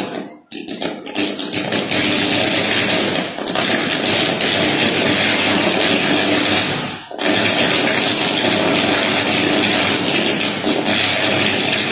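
Overhead electric power line short-circuiting in the rain, arcing with a loud, continuous harsh buzz. The buzz cuts out briefly just after the start and again about seven seconds in, then comes back.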